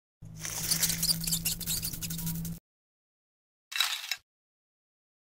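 Dry, scratchy rustling for about two seconds as the glove and bugs are handled, then a brief, higher rustle about a second later.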